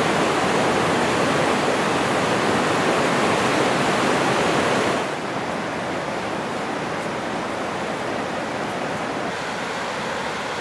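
Steady rushing of the Kiutaköngäs rapids on the Oulanka River, an even water noise with no pauses that drops somewhat in level about five seconds in.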